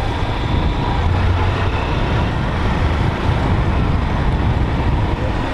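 Small-displacement motorcycle riding along at steady speed: engine drone under a steady rush of wind noise on the microphone.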